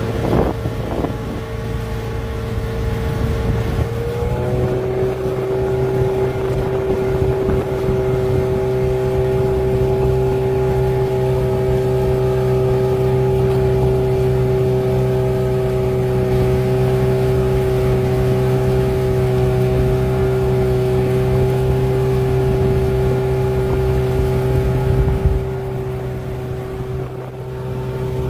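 Motorboat engine running steadily while under way, its held note dropping in pitch about four seconds in, with a steady low rumble underneath.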